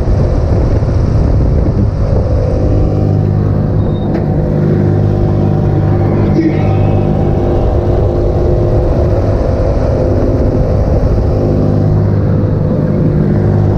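Kriek Gladiator funfair ride running, with a loud low rumble and a steady hum of several tones that drops out around the middle and returns near the end.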